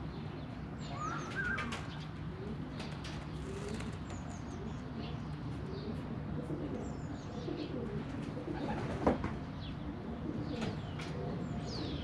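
Domestic pigeons cooing, with splashes and wing flutters as they bathe in a shallow tray of water, and small songbirds chirping in short high notes behind them. One sharp knock about nine seconds in.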